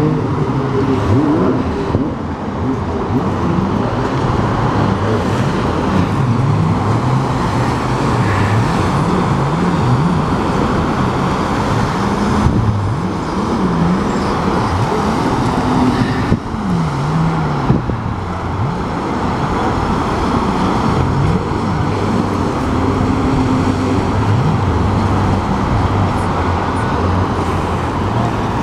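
Several jet skis' engines running on the water, their pitch rising and falling again and again as the riders throttle up and back off through turns, over a steady broad rushing noise.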